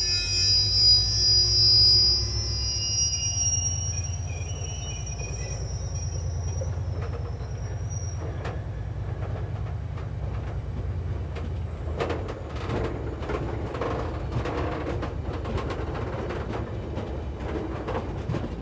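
An engineering train of long welded-rail wagons passing with a steady low rumble. High squealing tones from the wheels fade out over the first several seconds. From about twelve seconds in come rapid clicks of wheels running over the rail joints.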